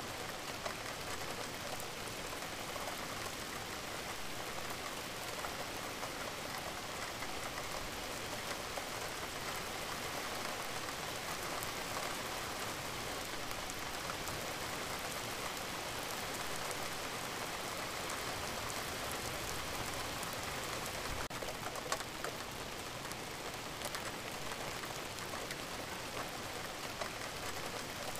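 Steady added rain-sound recording: an even hiss of falling rain, with one brief sharp tap about three-quarters of the way through.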